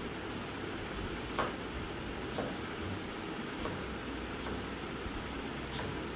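Kitchen knife cutting into a watermelon's flesh and rind, a few short crisp cuts about a second apart over a steady background hiss.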